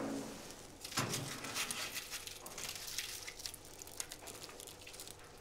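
Aluminium foil crinkling and rustling around a piece of food as it is unwrapped and eaten, a dense run of small irregular crackles starting about a second in.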